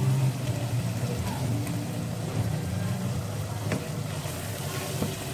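Onion-tomato masala sizzling in ghee in a nonstick kadai as it is stirred with a silicone spatula, with two brief taps of the spatula against the pan in the second half.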